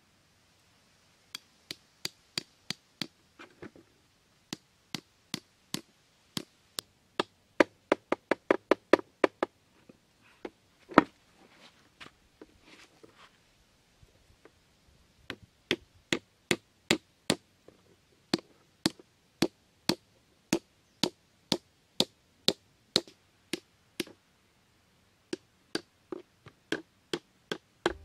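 Hammer striking the top of a thin bamboo stake, driving it into dirt ground: many sharp separate knocks in runs, with a quicker run of about three a second about eight seconds in, one loudest blow near eleven seconds, and short pauses between runs.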